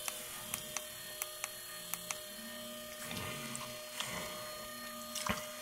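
Mini lathe leadscrew driven by a windshield-wiper motor, running with a steady hum and light regular ticking. The ticks grow sparser after about two seconds as the drive is slowed from its remote speed controller.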